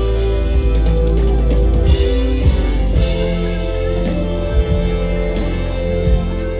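Live band playing amplified rock-style music: sustained electric guitar and keyboard chords over a heavy low bass line, with drum kit hits throughout.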